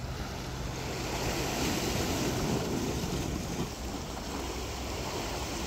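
Sea water washing against a rocky shoreline, with wind on the microphone; the wash swells for a couple of seconds in the middle.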